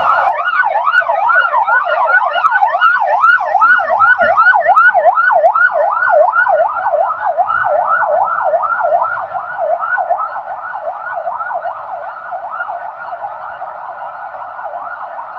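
Rescue vehicle's siren sounding in a fast yelp, about three rising-and-falling sweeps a second. It is loud at first and grows quieter from about nine seconds in.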